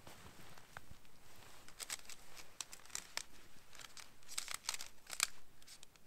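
Nylon tent fabric crinkling and rustling as a snow-covered tent is collapsed and gathered up, in a string of short rustles that come thickest and loudest near the end.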